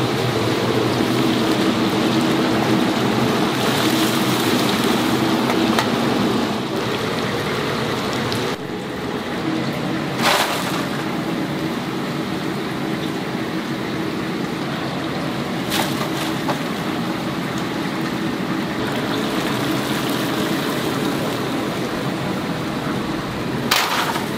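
Hot oil sizzling steadily as chicken fries in a cast-iron cauldron, with three short sharp knocks.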